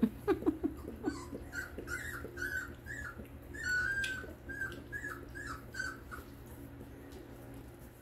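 Three-week-old Rhodesian Ridgeback puppy whimpering in a run of short high squeaks, about two a second, one drawn out a little longer midway, while it is held on its back and dosed with liquid dewormer.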